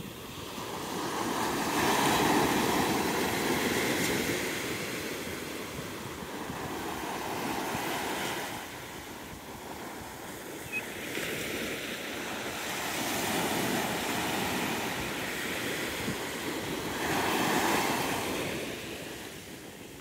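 Small ocean waves breaking and washing up a sandy beach, the surf rising and falling in surges every few seconds.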